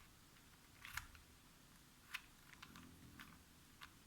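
Plastic Rubik's Cube being twisted by hand: a few faint, sharp clicks, spaced out, the clearest about a second in and two seconds in.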